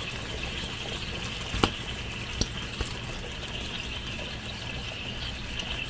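Soy sauce, sake, mirin and honey glaze simmering steadily around pork in a small frying pan, with a few light clicks of a metal measuring spoon, the loudest about one and a half seconds in.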